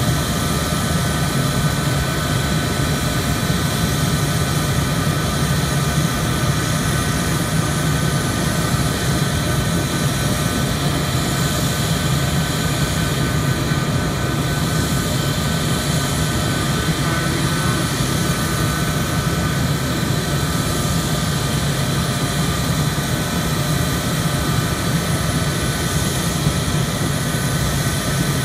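Jet turbine running at a steady pitch, a constant high whine over a low rumble, around an F-4E Phantom with its ground start cart hooked up.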